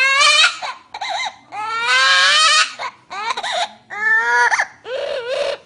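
A parrot imitating a baby crying: a string of wailing cries, some long and rising in pitch, others short, with brief breaths between them.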